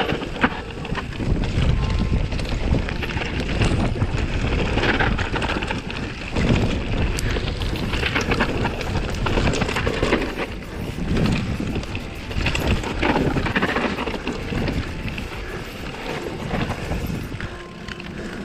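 Mountain bike riding down a dirt trail: wind buffeting the microphone over tyre noise, and the bike rattling and knocking over bumps. The level swells and dips every second or so.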